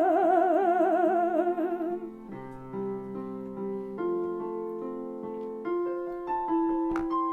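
A singer holds a long note with vibrato over keyboard accompaniment. About two seconds in the voice stops, and the keyboard plays on alone in slow held notes.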